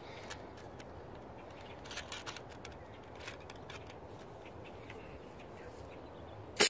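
A few faint clicks, then near the end a single short, sharp pop: a homemade compressed-air bolt rifle firing a burst of air from its fire-extinguisher tank, which is running low on pressure.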